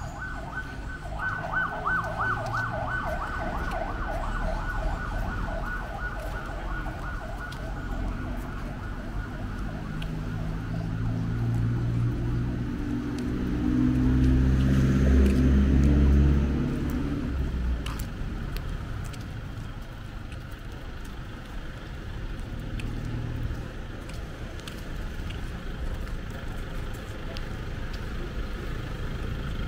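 Beachfront road traffic. For the first several seconds a rapidly pulsing electronic-sounding tone repeats about four times a second and fades out. Then a motor vehicle passes close, loudest around the middle, before dropping back to a low traffic rumble.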